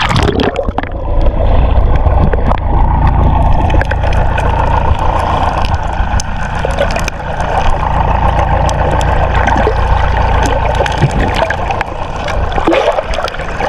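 A small fishing boat's motor running steadily with a low rumble, with water noise and small knocks around the hull.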